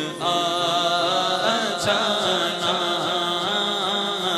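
Men singing a naat unaccompanied into microphones: a long held vocal note that wavers slightly, with a second voice singing along behind the lead.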